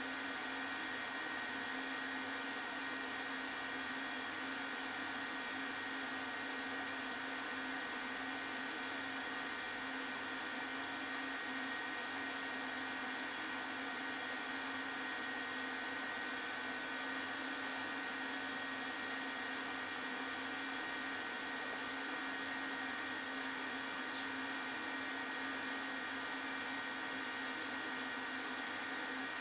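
Steady electric machine hum with a constant high whine, from a homemade CNC milling machine with its Z-axis drive running during motor tuning.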